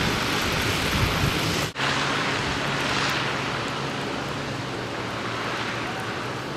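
Storm wind blowing during heavy snowfall, a steady rushing noise. For the first couple of seconds gusts buffet the microphone with a low rumble. After an abrupt cut the noise is steadier, with a faint low hum under it.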